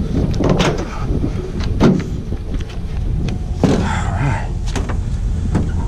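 Pickup truck engine idling in a steady low rumble, with a few knocks and scuffs as a stereo receiver is carried and handled over the truck bed.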